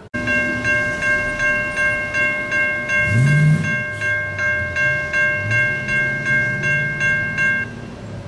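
Railroad grade-crossing bell ringing in quick repeated strokes, about two and a half a second, then cutting off near the end. Under it, a train passes the crossing with a low engine rumble that rises in pitch twice.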